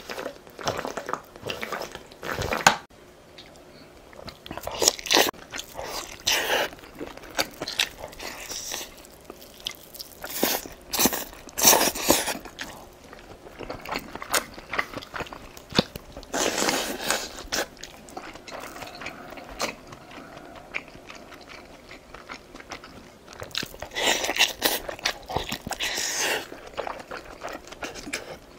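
Close-miked eating: biting and chewing green onion kimchi and dumplings, in irregular crunchy bursts with short pauses between. At the start there are gulps of water from a plastic bottle.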